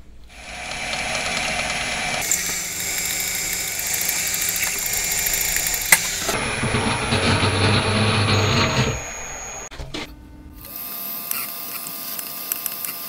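Twist drill turning in a small milling machine's spindle and cutting into a cast aluminium engine cylinder, a steady whine with the noise of the cut. It stops about nine and a half seconds in and starts again on a second hole, the oil return passage, a little over a second later.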